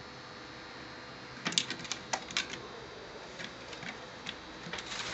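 A young hooded crow tapping and pecking its beak against a wooden board: a quick, irregular run of sharp taps starts about a second and a half in, with more scattered taps toward the end.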